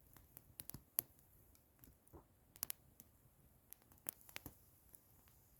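Near silence broken by faint, irregular short clicks and ticks, a dozen or so scattered through it.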